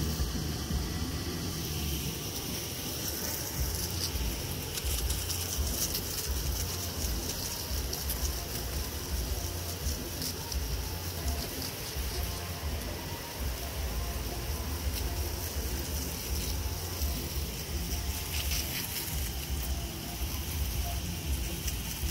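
Water from a garden hose spray nozzle hissing and pattering onto grass, under a low, uneven rumble.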